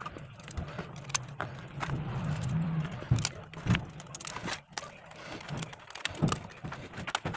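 Scattered small clicks and taps of hands and tools handling electronic parts on a repair bench, with a low hum for about a second near the middle.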